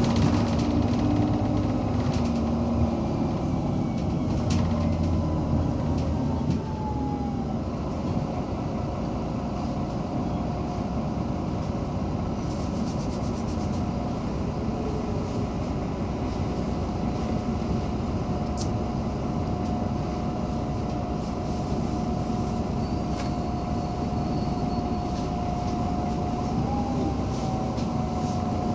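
Irisbus Citelis 18 articulated city bus with an Iveco Cursor 8 inline-six diesel, idling at a stop with a steady low rumble and a whine. The whine drops in pitch about seven seconds in and then holds steady.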